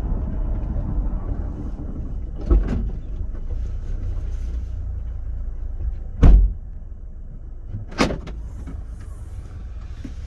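Land Rover Freelander 2 rear suspension knocking three times over a steady low road rumble, the loudest knock about six seconds in: the rear-suspension knock that points to a fault in it.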